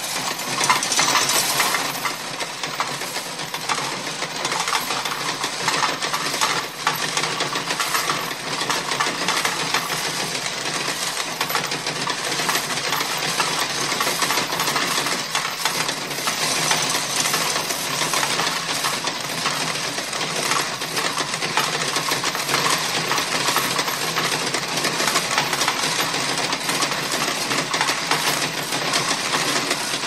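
Coin counting and sorting machine running, with a continuous stream of coins clinking and rattling through it.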